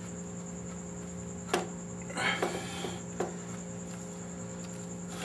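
A few light clicks and knocks, one about one and a half seconds in and another a little after three seconds, with a brief rustle of a shop rag around two seconds, over a steady low electrical hum.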